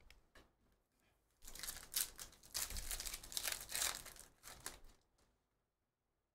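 Foil wrapper of a Panini Phoenix football card pack being torn open and crinkled by hand, starting about a second and a half in and stopping near the end.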